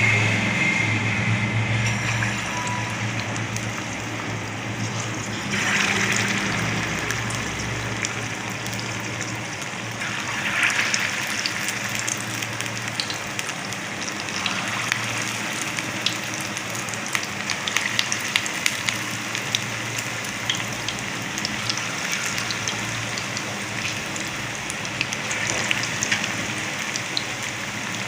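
Rava (semolina and curd) batter fritters deep-frying in hot oil: a steady sizzle with many sharp crackling pops, swelling louder several times as fresh spoonfuls of batter go in.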